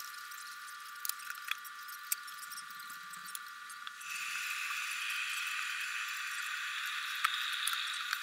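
Electric kettle at the boil, a steady hiss that grows louder about four seconds in as its lid comes off and steam pours out. A few light clicks and taps of handling.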